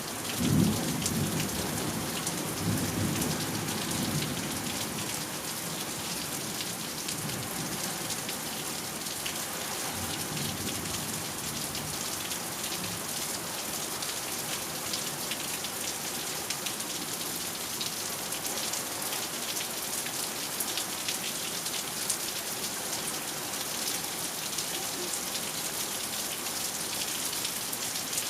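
Heavy, steady thunderstorm rain falling on surfaces. A low rumble of thunder swells about half a second in and fades away over the next few seconds.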